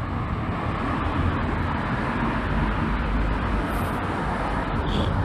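Road traffic: the steady rush of passing motor vehicles, building a little over the first second and then holding.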